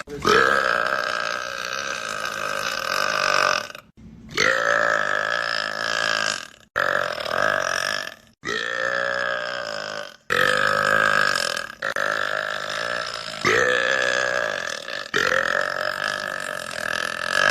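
A man belching long, drawn-out burps, about eight in a row. Each lasts one and a half to three and a half seconds and is broken off by a short pause. Every burp swoops up in pitch at its start and then holds a steady, droning tone.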